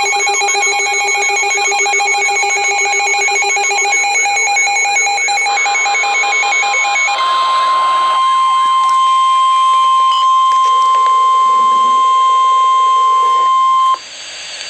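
Emergency alert tones: first a pulsing, warbling electronic alarm, then, about seven seconds in, the steady single-pitch 1050 Hz NOAA Weather Radio warning alarm tone, which signals that a warning-level alert follows. The steady tone cuts off abruptly about fourteen seconds in.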